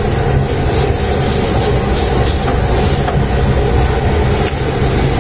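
Large commercial gas burner running at full flame under a big pot of boiling water: a loud, steady low rumble, while raw rice is poured into the water.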